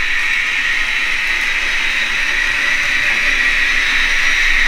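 Sound-equipped Hobbytrain N-scale BR 110 and BR 112 model electric locomotives running with their trains: a steady whirring hiss that grows slightly louder.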